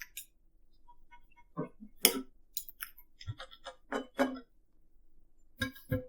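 Sounds of eating a steak meal: a string of short clicks and clinks, such as knife and fork on a plate, loudest about two seconds in and again around four seconds.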